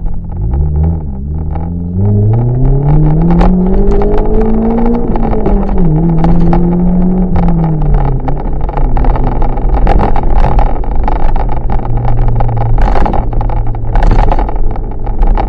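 Loud car exhaust with a one-off RS-R exhaust-manifold silencer and rear exit, accelerating. The engine note rises, drops at a gear change about five seconds in, falls again near eight seconds, then settles into a steady lower drone with scattered sharp pops.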